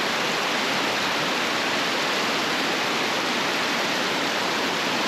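A creek swollen with spring runoff rushing down over rock, a steady, unbroken wash of water noise.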